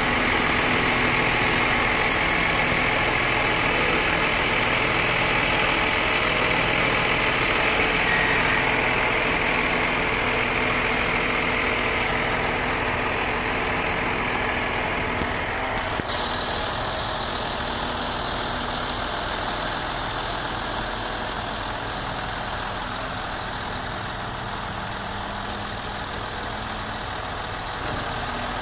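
Scania P360 crane truck's diesel engine running steadily at idle while the crane's hydraulic control levers are worked, with a higher hiss over the engine that drops away a little past halfway.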